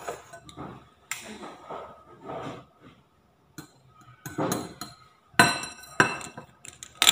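Wire whisk beating egg yolks in a ceramic bowl, clinking and scraping against the sides, with several sharp knocks and clinks, the loudest near the end.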